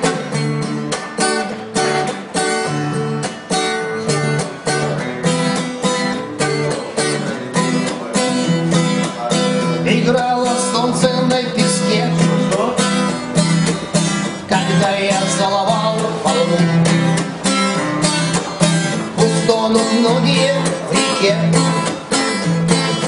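Acoustic guitar strummed in a steady, even rhythm, playing through a song's instrumental passage, with a wavering melody line rising above it at times.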